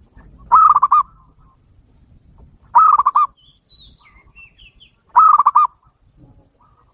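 Zebra dove (perkutut) lure call: three short phrases of quick rolling coos, each about half a second long and about two and a half seconds apart. Faint high chirps come between the second and third phrases.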